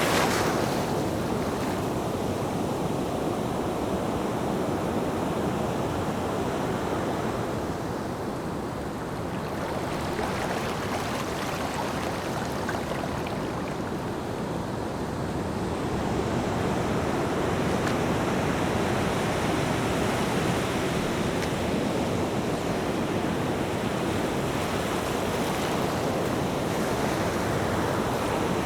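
Ocean surf: a continuous rush of waves breaking and washing in, easing slightly about eight and fourteen seconds in and building again after about sixteen seconds.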